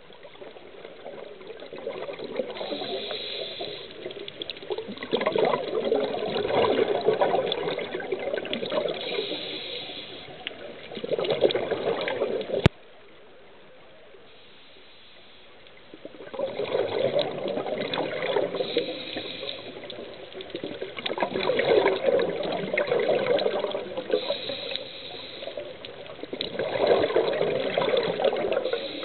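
Scuba diver's regulator breathing: a hiss on each inhale, then a gush of exhaled bubbles, repeating about every five seconds. About halfway through there is a sharp click and a few seconds of dull quiet before the breathing starts again.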